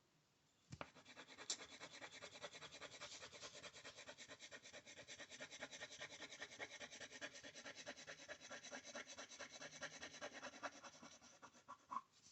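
Colouring in on paper: faint, quick back-and-forth scribbling strokes, several a second, starting about a second in and going on steadily.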